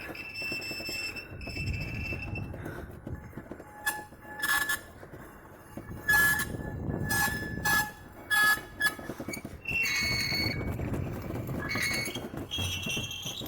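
Homemade sound effect: a series of high-pitched squeaks and squeals. A couple are held for about a second near the start, several short clipped ones come in the middle, and longer squeals return near the end.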